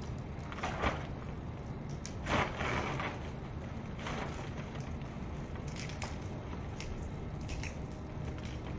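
Paper poster being torn off a wall and crumpled: a few short tearing, crumpling bursts, the loudest about two and a half seconds in, over steady low background noise.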